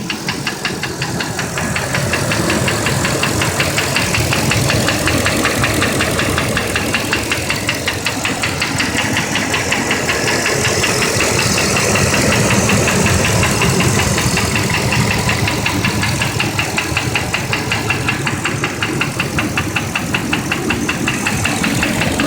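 An 8.1-litre V8 engine running with a fast, even knock. The knock comes from a broken piston that had lost a piece after running lean on a contaminated MAF sensor.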